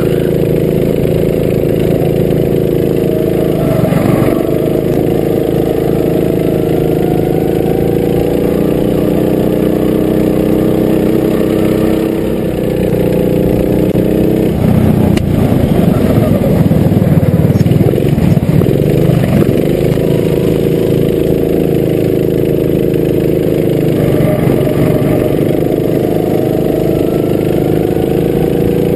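Go-kart engine heard from onboard at speed, its pitch climbing slowly along the straights and dropping sharply each time the driver lifts off for a corner, four or so times.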